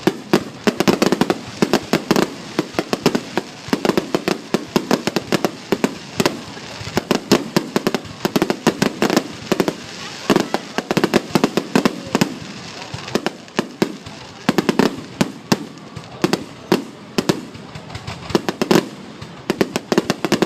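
Fireworks going off in a dense, irregular barrage of sharp cracks and bangs, several a second.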